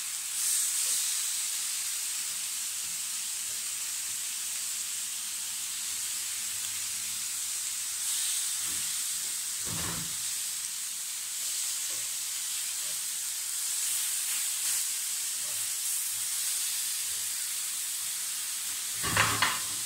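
Pork loin slices sizzling steadily in a dry non-stick pan, frying in their own rendered fat with no oil added, as they are turned over with metal tongs. Two short knocks of the tongs against the pan come about halfway through and near the end.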